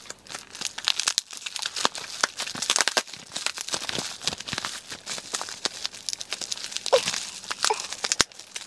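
Bubble-wrap packaging crinkling and tearing as it is pulled apart by hand, a dense run of irregular sharp crackles.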